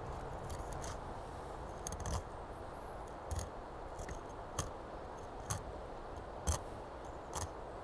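Fillet knife skinning a kelp greenling fillet on a plastic cutting board in short strokes, each stroke a crisp snip, about one a second, over a faint steady hiss.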